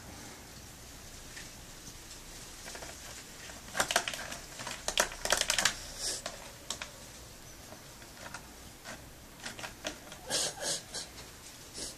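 Cats eating from a plastic tub of food: clusters of quick, crisp crunching clicks, a dense run about four seconds in and another about ten seconds in.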